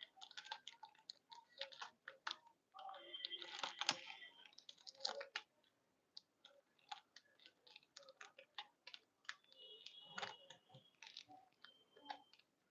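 Faint, irregular light clicks and taps close to the microphone, with brief high tones about three to four seconds in and again about ten seconds in.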